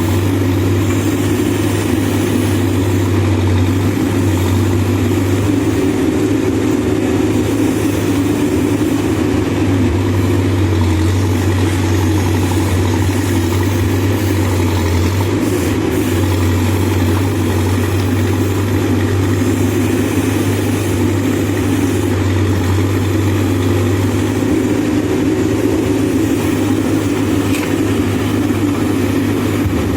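Backhoe loader's diesel engine running steadily at a constant low speed, a loud, even drone.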